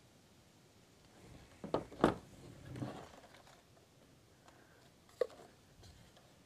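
Plastic housing of a cordless chainsaw knocking and scraping on a tabletop as it is picked up and turned over. Two sharp knocks come about two seconds in, then a softer scrape, and one click later on.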